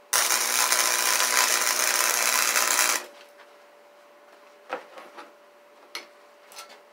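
Wire-feed (MIG) welder arc crackling steadily for about three seconds as a weld is run into the pock marks worn into a go-kart spindle, then cutting off suddenly. A few light metal knocks follow as the part is handled on the bench.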